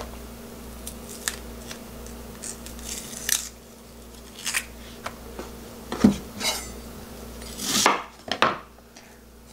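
Chef's knife cutting a red onion on a bamboo cutting board: scattered knocks and scrapes of the blade and onion on the wood, the loudest about six and eight seconds in, with the onion layers handled between cuts.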